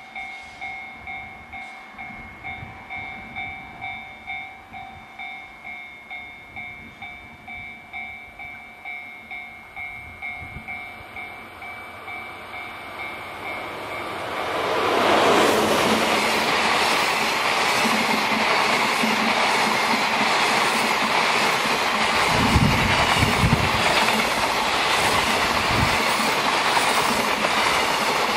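A railway crossing warning bell rings in steady pulses, about two a second, as the train approaches. About halfway through it gives way to the loud rush and rumble of a DF200 diesel-electric locomotive and its container wagons passing close by, with wheels clacking over rail joints.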